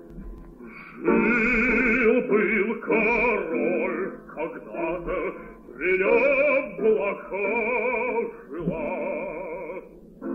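Operatic bass singing in long phrases with wide vibrato over accompaniment, coming in about a second in after a quieter instrumental passage.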